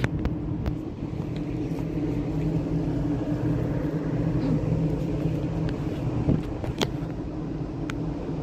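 Steady low drone of a ship's engines and machinery, with a few faint clicks.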